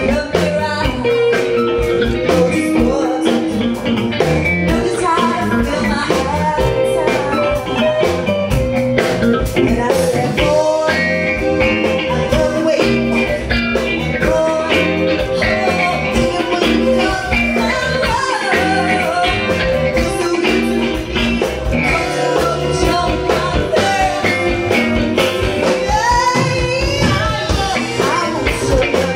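Live rock band playing: a female vocalist singing over electric guitars, bass guitar and drums.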